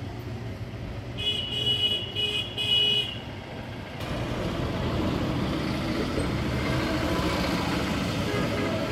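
A horn sounds in three short blasts over a steady low engine hum, then a louder rushing rumble builds up about four seconds in and holds.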